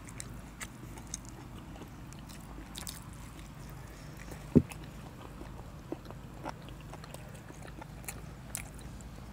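Close-up eating sounds: biting and chewing food, with small crisp clicks and mouth noises. There is one short thump about four and a half seconds in.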